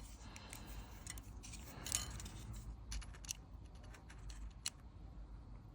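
Faint, scattered metallic clicks and clinks as small steel water-pump dowels are handled and measured with calipers.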